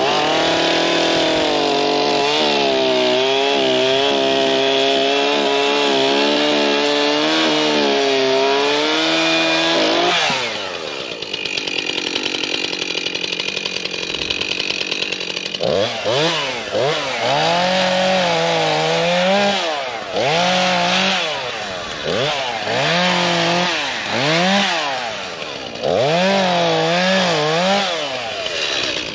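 STIHL two-stroke chainsaw held at full throttle for about ten seconds while cutting into willow wood, then dropping back to a lower, rougher idle. From about halfway through it is revved up and down repeatedly, roughly once a second.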